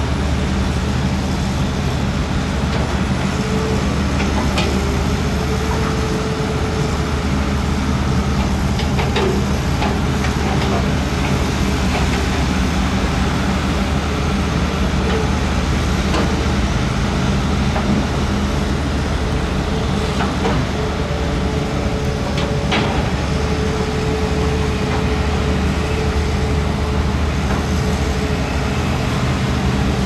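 Diesel engine of a Shantui SD16L crawler bulldozer running steadily under load, with a few sharp metallic clanks and a faint whine that comes and goes.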